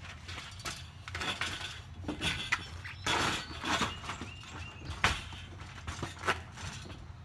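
Irregular knocks, clicks and handling rustles, with the sharpest knock about five seconds in: a ladder being set in place to prop open a minivan's liftgate.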